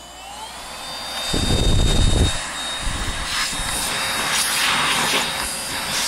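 GANIZA V20 cordless stick vacuum switched on: the motor spins up with a rising whine over the first second, then runs steadily with a high whine and a rush of air. There is a low rumble about a second and a half in, and a shorter one about three seconds in.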